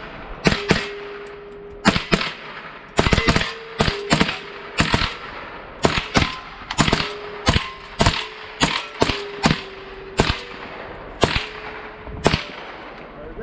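A string of about twenty single gunshots fired at an uneven pace, some in quick pairs and others a second apart, from a shooter running a timed course. A faint steady ringing tone hangs between many of the shots.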